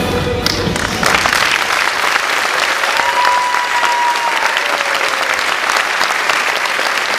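The dance music ends about a second in and audience applause takes over. Around the middle a single long high call carries over the clapping.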